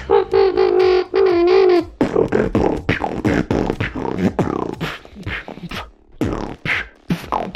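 Beatboxer doing the human siren, a buzzing lip sound backed by the low voice, as a few held tones with small dips in pitch. About two seconds in it gives way to a fast run of beatbox clicks, beats and short pitch glides, combining the siren with another beatbox sound.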